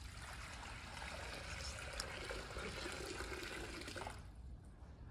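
Water poured in a thin stream from a metal pitcher into a metal font bowl, a steady trickle that stops about four seconds in.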